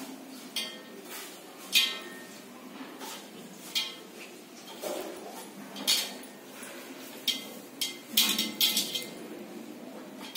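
Scattered clinks and knocks of a steel plate on the counter as grated bottle gourd is mixed on it by hand, a sharp tap every second or two and a quicker run of them near the end.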